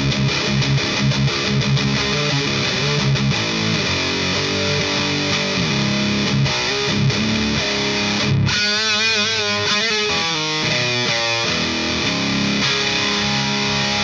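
Electric guitar through a Rivera Knucklehead Reverb KR100 tube amp head, high-gain distorted tone, playing heavy chord riffs. About eight seconds in it moves to a single-note lead line with wide vibrato, then back to chords.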